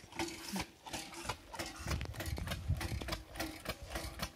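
Homemade steam bicycle's steam engine chuffing in a quick, even rhythm, several puffs a second, as it gets running and starts to drive the bike, with a low rumble joining in about halfway.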